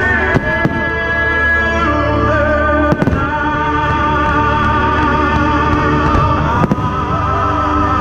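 Fireworks exploding in a musical display: a few sharp bangs and crackles over loud music with long held melodic notes.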